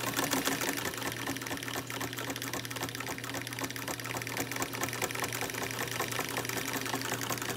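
1954 Singer 99K sewing machine stitching a seam at the longer stitch length, driven by its belt-driven electric motor: a fast, even clatter from the needle mechanism over a steady motor hum.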